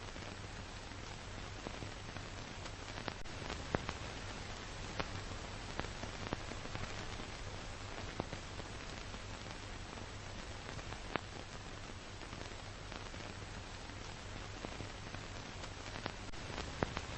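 Steady hiss with a faint low hum and scattered sharp clicks and crackles: the noise floor of an old film transfer with no recorded sound.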